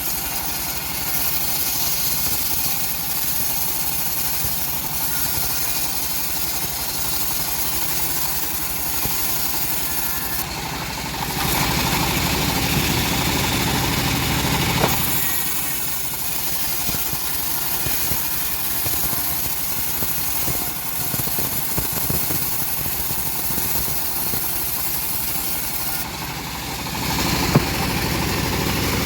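Engine-driven homemade bandsaw mill running steadily while sawing hard teak. It grows louder and rougher for a few seconds twice: from about 11 seconds in, and again near the end.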